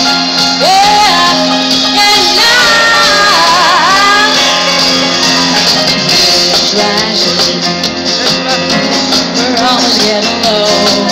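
Live pop-dance song played loud through a concert PA: a band with a female lead vocal singing a wavering, gliding melody over sustained keyboard-and-band backing.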